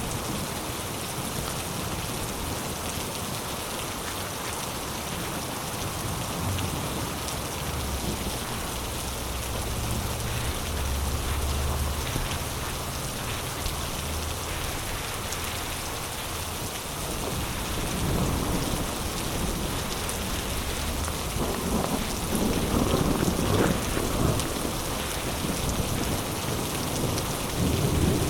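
Heavy rain pouring steadily, with a long, low roll of thunder through the middle and louder rumbling swells in the last third.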